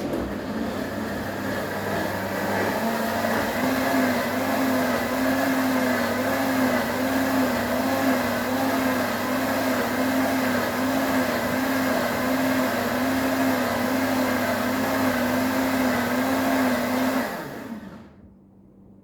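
Countertop blender running, blending frozen fruit with orange juice into a smoothie. The motor spins up at the start, runs steadily with a slightly wavering hum, and winds down near the end.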